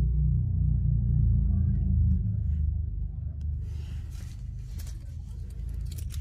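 Low, steady motorcycle engine rumble, loud for the first three seconds and then fading. Some rustling near the end.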